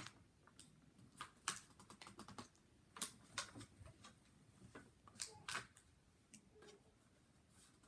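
Faint, irregular sharp clicks and taps of small plastic Lego pieces being handled, coming in short spurts of a few clicks with pauses between.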